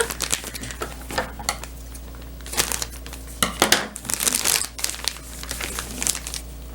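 Packaging crinkling and rustling as it is handled by hand during unboxing, in irregular crackly bursts that are busiest around the middle.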